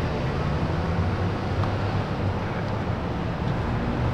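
A vehicle running with a steady low rumble.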